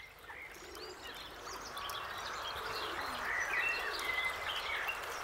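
Nature ambience of small birds chirping over a steady rustling hiss, fading in over the first couple of seconds.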